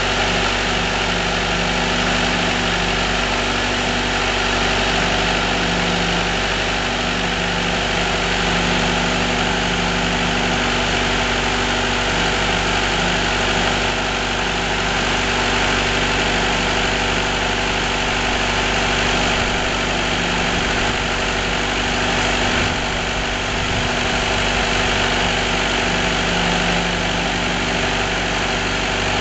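Firewood processor's engine running steadily at a constant speed, with a lower hum that wavers in and out every few seconds.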